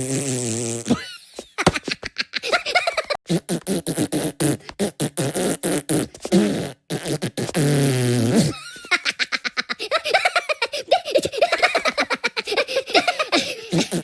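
A rapid string of comic cartoon fart sound effects: fluttering, rattling farts, with a couple of longer, low buzzy ones held for about a second near the start and about eight seconds in.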